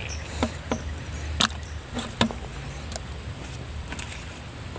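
A few sharp, light knocks and clicks as an eel trap tube is handled and tipped out over a plastic bucket of live eels, over a faint low hum.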